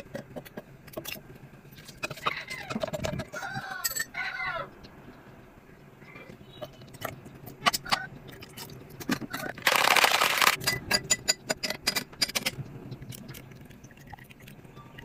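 Kitchen handling sounds while an iced mango coffee drink is made: scattered clicks and knocks of a spoon, mango pieces and a plastic shaker cup. A run of short rising-and-falling chirps comes about two to four seconds in. About ten seconds in there is a loud rushing noise lasting about a second, followed by a quick run of clicks.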